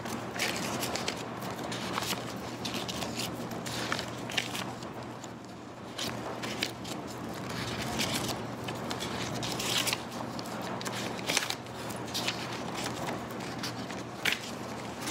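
Paper banknotes being counted out by hand and laid onto a counter: irregular crisp rustles and flicks of the bills. A low steady hum runs underneath.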